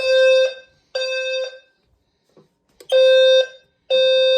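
Fire alarm horn strobe sounding the temporal-3 evacuation pattern: loud half-second horn blasts about a second apart, three to a group, with a pause of about a second and a half between groups.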